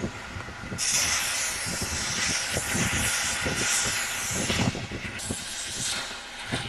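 Narrow-gauge steam locomotive standing at the platform, letting off steam with a loud, even hiss. The hiss comes on about a second in, cuts off sharply near five seconds, then returns briefly.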